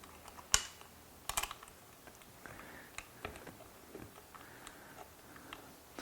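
Small metal hardware clicking and tapping while a lock washer and nut are fitted to a seat-rail bolt. The clicks are light and irregular, with a sharper one about half a second in and a quick cluster around a second and a half.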